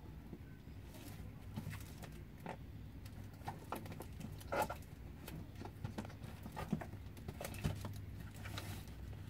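Hands handling and flipping over a plastic-wrapped cardboard parcel: scattered crinkles and taps, the sharpest about four and a half seconds in, over a low steady hum.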